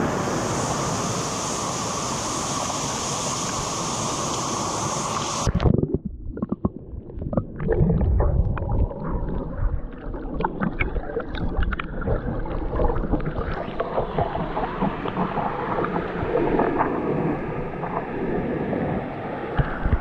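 A steady rushing hiss of open air over a shallow rock pool. About five and a half seconds in, the camera is dipped underwater and the sound turns muffled: low rumbling with many small clicks and crackles of water moving against the camera.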